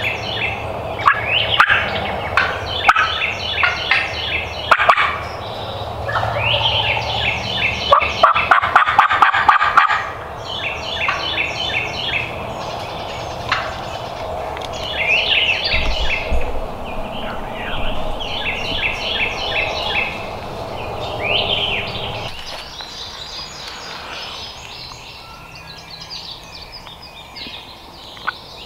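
Wild turkey gobbling repeatedly, rapid rattling gobbles coming every couple of seconds, the loudest and closest about eight to ten seconds in. Other birds' short falling whistles come between the gobbles, and everything is fainter in the last few seconds.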